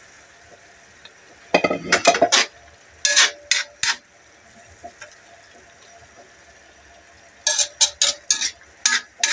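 Metal cooking utensil clinking and scraping against an aluminium wok while stirring potatoes and carrots into chicken wings. The clinks come in three quick runs: about a second and a half in, around three seconds, and again from about seven and a half seconds to the end.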